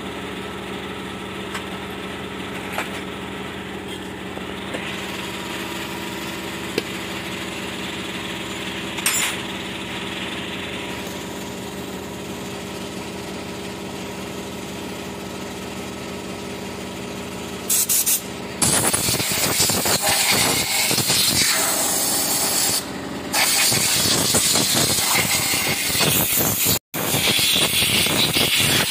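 A steady machine hum, then about two-thirds of the way in the loud hiss of a compressed-air spray gun with a canister, blasting a mist over a motorcycle engine. The hiss cuts out briefly a few times as the trigger is released.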